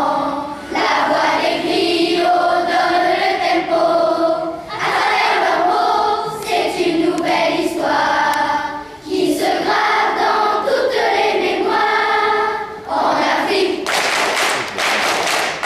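Children's choir singing a song in French in unison. About thirteen seconds in, the singing breaks off into hand clapping.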